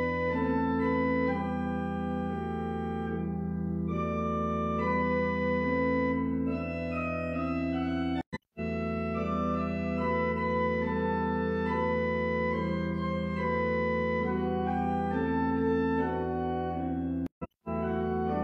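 Church organ playing slow sustained chords over a held bass note. The sound drops out for a split second twice, about eight seconds in and near the end.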